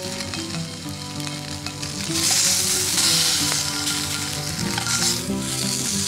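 Bacon and eggs sizzling in an iron frying pan, the sizzle growing louder about two seconds in, under background music.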